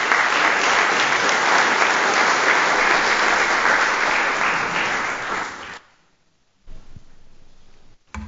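Audience applauding. The clapping stops fairly suddenly about six seconds in, and a short knock follows near the end.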